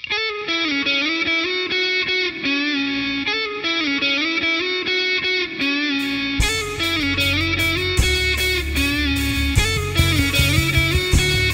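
Rock music: a distorted electric guitar plays a riff that repeats about every two seconds, and drums and bass come in about six seconds in.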